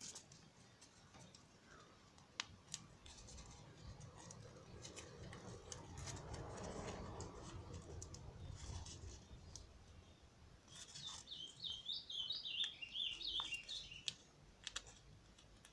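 A small bird chirping in a quick run of twitters, loudest a little past halfway, over scattered faint clicks and a soft rustle of hands working cloth and scissors.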